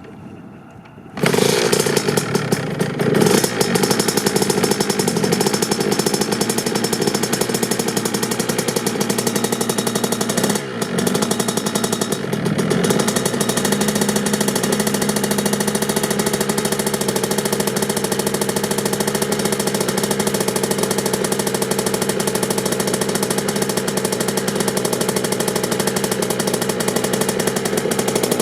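Kawasaki KX65's small single-cylinder two-stroke engine starting suddenly about a second in on a cold start, then running steadily with a buzzy two-stroke note, briefly dipping twice near the middle.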